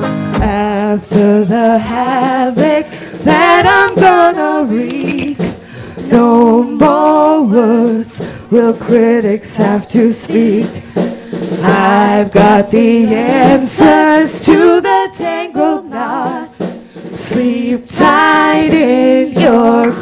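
Two women singing a rock song live into handheld microphones, with the band's bass end dropped away so the voices carry it almost unaccompanied, over sharp rhythmic hits.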